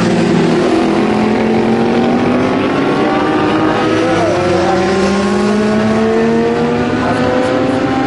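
Several racing motorcycle engines at high revs going through a corner, overlapping one another, their pitch rising steadily as they accelerate away. About four seconds in, one bike passes close with a quick fall in pitch.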